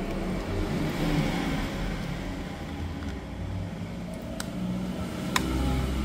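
Low, wavering rumble, with three sharp clicks in the second half; the last, a little past five seconds, is the loudest.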